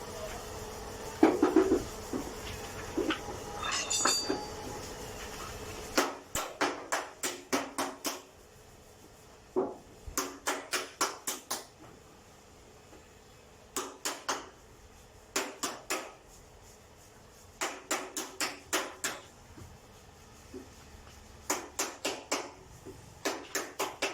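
Hammer blows on the sheet metal of a car door panel, struck in quick runs of several blows, about four a second, with short pauses between runs: panel beating. For the first six seconds there is only a steady background noise with a few clatters.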